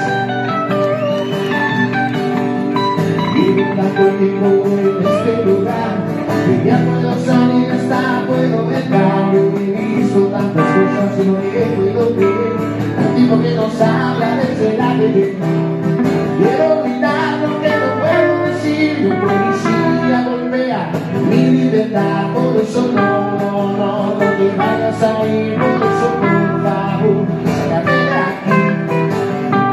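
Live rock song played on guitars, with singing in places.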